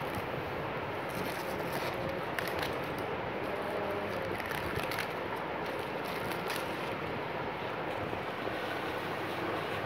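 Steady rushing background noise, with light rustles and crinkles of a plastic-wrapped phone box being turned over in the hands, several of them between about one and six and a half seconds in.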